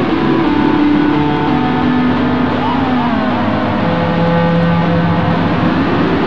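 Circuit-bent electronic toy ball playing through a Korg A4 guitar multi-effects unit: loud, noisy held electronic tones that step from pitch to pitch, with gliding sweeps about halfway through and rising glides near the end, over a constant hiss.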